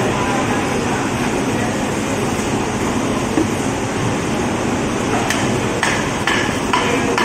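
Blade blows on a thick wooden chopping block as a large fish is cut: a run of sharp knocks, about two a second, in the last two seconds, over a steady background din.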